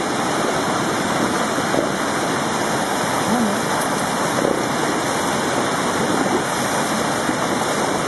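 Fast-flowing creek rushing over rocks: a steady, loud rush of white water.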